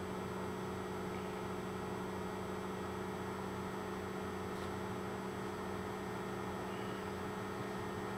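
Steady low electrical hum with a faint hiss over it, unchanging.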